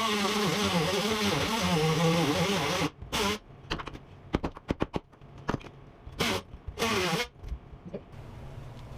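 A handheld power tool motor runs for about three seconds, its pitch wavering under load, then cuts off abruptly. After that come scattered clicks and knocks, with two short bursts of the tool a little past the middle.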